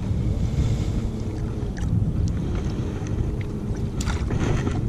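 Wind rumbling on the microphone over open water, a steady low buffeting, with a few light knocks, the clearest about four seconds in.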